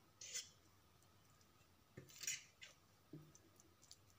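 Metal fork cutting through pizza crust and scraping a paper plate: two short scratchy scrapes about two seconds apart, then a few faint taps.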